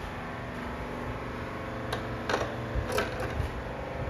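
Steady hum of the hotel room's air-conditioning unit, which is really loud, with a few light clicks and knocks about two to three and a half seconds in.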